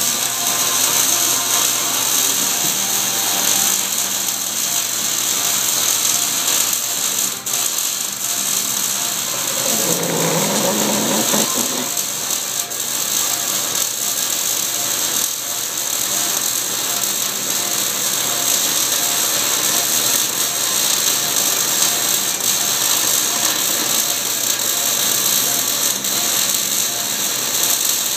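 Metal lathe running while a large twist drill bores into a spinning steel bearing cap: a steady cutting and machine noise, with a brief deeper sound about ten seconds in.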